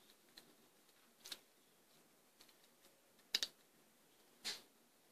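Clear plastic Invisalign aligner tray being pressed onto the teeth by hand: a few faint, sharp plastic clicks and snaps, the loudest a quick pair about three and a half seconds in and a slightly longer one about a second later.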